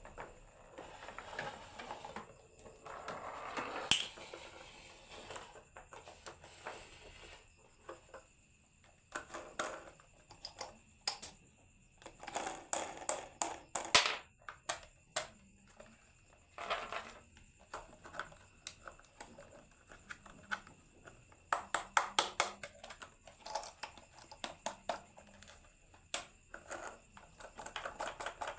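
Marbles rolling and clattering down a toy marble run. A rolling rumble early on ends in a sharp clack, then come runs of rapid clicks and clacks at irregular intervals as marbles drop and hit the track pieces.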